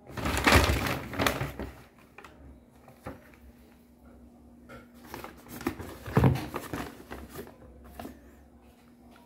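Brown paper bag rustling and crinkling as a kitten pushes into it and plays with it. There are two loud spells, one at the very start lasting under two seconds and another from about five to seven and a half seconds in, with scattered small crackles between.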